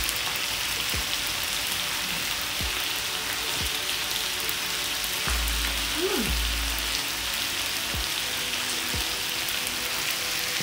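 Beef sizzling steadily on an electric griddle, with a brief low rumble about halfway through.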